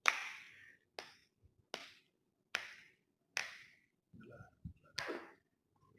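Sharp cracks from a chiropractic back adjustment: six in a row, roughly one a second, with a longer pause before the last, each trailing off in a brief hiss.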